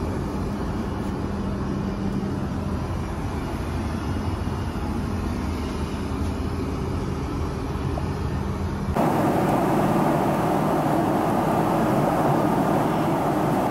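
Steady in-flight drone of a Boeing 777-200ER heard from inside the aircraft. A low hum with a steady tone in the lavatory changes abruptly, about nine seconds in, to a louder, brighter rushing cabin noise at the seat.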